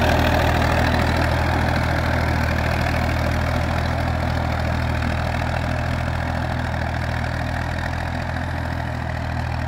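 Massey Ferguson 35 tractor engine running steadily while pulling a spring-tine cultivator through a worked field. It grows gradually quieter as the tractor moves away.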